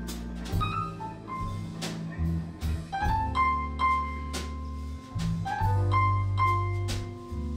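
Live blues band playing an instrumental break, with no singing. Drums keep a steady beat under a bass line, while a lead instrument plays held high notes with short upward slides.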